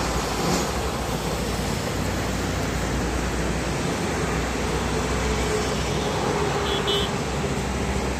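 Steady highway traffic noise: tyre roar and the low rumble of heavy diesel trucks and cars passing at speed.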